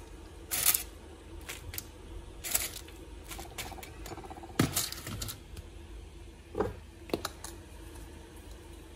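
Chips being served onto a china plate with a metal utensil: scattered light clicks and taps of metal and chips on the plate, about a dozen spread unevenly, the loudest near the start and about halfway through.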